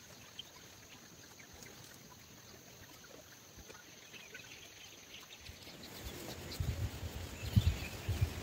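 Quiet outdoor ambience: scattered faint bird chirps over a steady high-pitched insect drone, which stops about five and a half seconds in. From about six seconds in, an irregular low rumble of wind buffeting the microphone grows louder and becomes the loudest sound.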